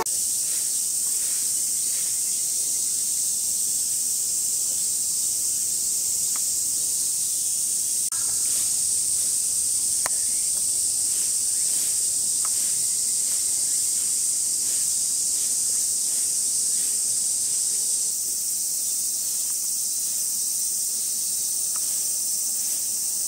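Summer cicada chorus: a steady high-pitched hiss, with a few faint clicks.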